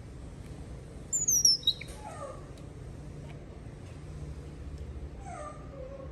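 Baby monkey calling twice, each call a high cry that falls steeply in pitch. The first, about a second in, is loud and shrill; the second, near the end, is softer.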